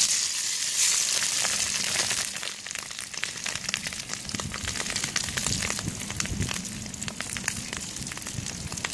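Meat-free fillets frying in hot oil in a small metal pan over a wood fire. The sizzle is loudest as the food goes in, surges again about a second in, then settles into a steadier sizzle with many small crackles and pops.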